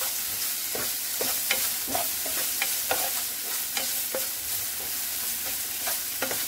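Diced onions and tomatoes sizzling as they fry in a non-stick frying pan, stirred with a spoon that scrapes and taps against the pan bottom every half second or so over a steady hiss.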